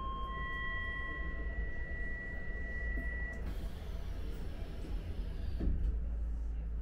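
Inside a Docklands Light Railway car standing at a platform: under the low hum of the train, a steady electronic tone is joined by a higher one, and together they sound for about three seconds. A faint hiss follows, then a short thump about five and a half seconds in.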